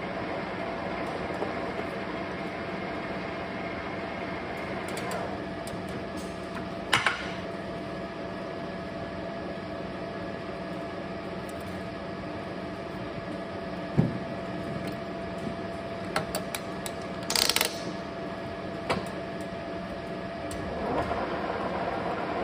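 Metal lathe running with a steady hum of several fixed tones, with a handful of sharp clinks and knocks from the work scattered through it.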